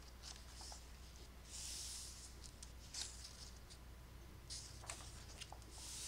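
Thin paper pages of a coloring book turned and smoothed by hand: two soft rustles of paper sliding, one about a second and a half in and one near the end, with a few light ticks between them, over a faint steady low hum.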